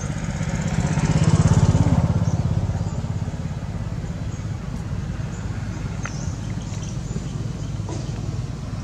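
A motor engine running with a steady low pulsing, louder for a couple of seconds near the start, then easing back to an even level.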